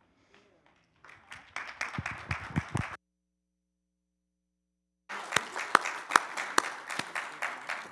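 Congregation applauding, a dense patter of many hands clapping. The sound drops out completely for about two seconds in the middle, then the applause comes back.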